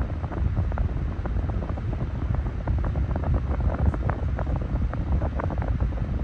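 Massey 9-inch high-velocity desk fan running at speed, a steady rush of air with its blast buffeting the microphone.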